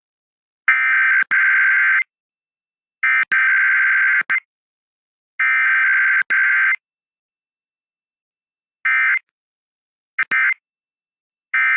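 Emergency Alert System SAME data bursts: three buzzing header bursts of about a second and a half each, then three short end-of-message bursts, each about a second apart. Header and end-of-message come with no attention tone or voice message between, as in a Required Weekly Test.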